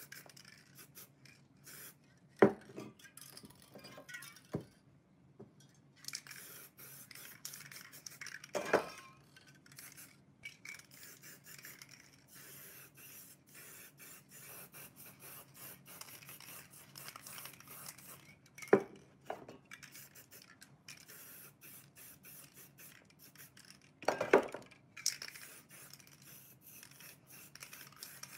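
Aerosol spray paint can hissing in long and short bursts as paint is sprayed, with about four sharp knocks of cans or tools being handled on a wooden table.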